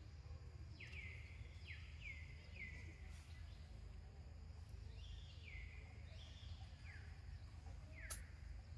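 A bird calling: a short falling whistle repeated about six times at uneven gaps, faint over a low steady rumble.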